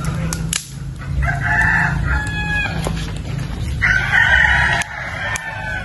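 Rooster crowing twice, each crow about a second long, over a steady low rumble with a few sharp clicks.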